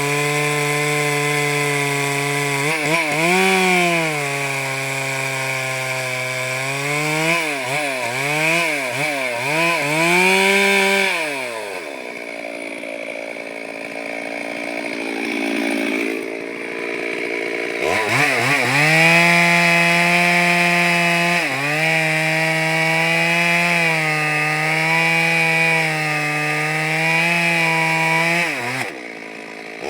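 Chainsaw engine running under load as it cuts wood, with its pitch rising and falling repeatedly through the first ten seconds. It eases off for several seconds from about twelve seconds in, comes back up to a steady high run at about eighteen seconds, and drops off again near the end.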